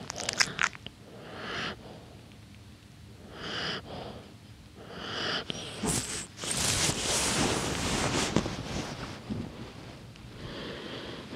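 Small dog lip-smacking with a few wet clicks, then breathing through its nose in soft breaths about two seconds apart. About six seconds in, the nylon down jacket it is wrapped in rustles loudly for a few seconds as the dog shifts and burrows under it.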